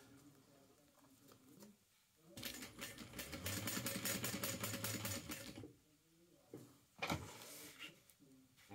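Sewing machine stitching in one run of about three seconds, a fast even patter of needle strokes over a steady motor hum that starts a couple of seconds in and then stops. A single short sharp sound follows about two seconds later.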